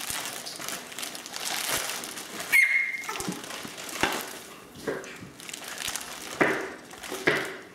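Plastic bubble wrap crinkling and rustling as it is handled over a crawling baby, with short sharp bursts of crinkling every second or so. About two and a half seconds in, the baby gives a brief high squeal, the loudest sound.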